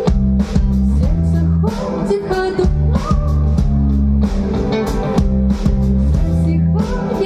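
Live band music: guitar and bass over a steady drum beat, with a singer's voice in parts.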